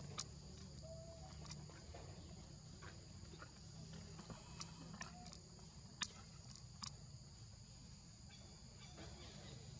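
Faint outdoor ambience of insects: a steady high-pitched drone, with a low hum underneath. A few sharp clicks break through, the loudest about six seconds in, and two faint short chirps come at about one second and four and a half seconds in.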